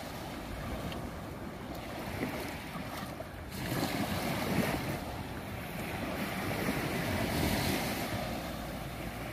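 Small sea waves washing onto a sandy shore, swelling louder about midway, with wind rumbling on the microphone.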